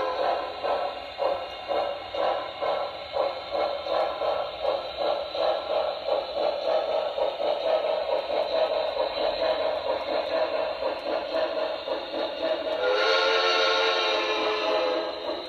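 Sound system of an HO scale Broadway Limited Paragon2 Pennsylvania Railroad 2-10-0 Decapod playing steady, rhythmic steam exhaust chuffs as the model locomotive runs. About thirteen seconds in, the model's steam whistle sounds for about two seconds.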